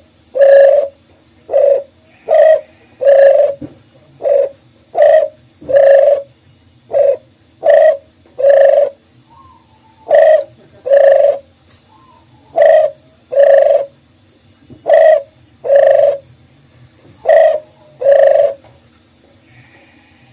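Dove cooing in a steady repeated phrase of two or three low coos, the last of each phrase longer, the phrases coming about every two and a half seconds and stopping near the end. A faint steady high-pitched tone runs underneath.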